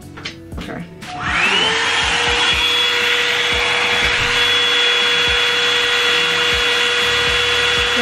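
Revlon One-Step hot air brush (hair dryer and volumizer) switched on: a few clicks, then about a second in its motor spins up with a rising whine and settles into a steady blowing hum.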